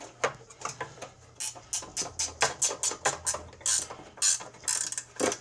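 Metal clicks and clinks, quick and uneven, of a 1/2 inch wrench being worked on a bolt holding the snow blower's recoil starter housing.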